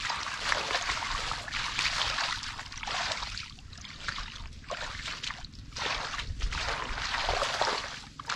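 Water splashing and sloshing in several long surges, with short lulls between them.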